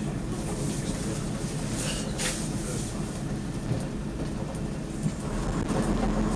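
Heritage diesel multiple unit running along the line, heard from its driving cab: a steady diesel engine hum over wheel and track noise, with the engine note growing louder about five seconds in.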